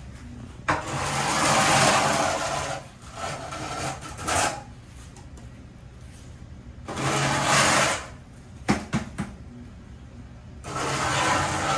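Handheld power tool running in four bursts of one to two seconds each, the loudest near the start and the end, with a few sharp knocks between the third and fourth bursts.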